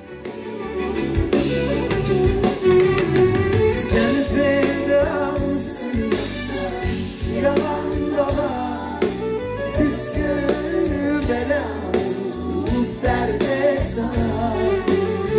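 Live pop music: a male lead singer with a full band of drums, guitar and keyboards, and backing vocalists.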